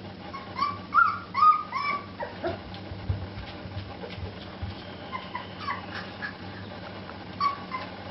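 Shar Pei puppies play-fighting, giving short high yelps that drop a little in pitch: a run of them in the first two seconds, a few more around five to six seconds in, and one near the end. Low thumps around the middle, over a steady low hum.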